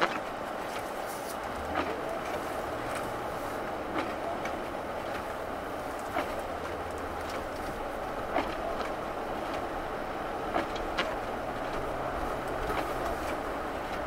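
Steady tyre and road noise from a Ford Grand Marquis driving on a snow-covered road, heard inside the car. The V8 engine's low hum comes and goes underneath, and a light tick repeats about every two seconds.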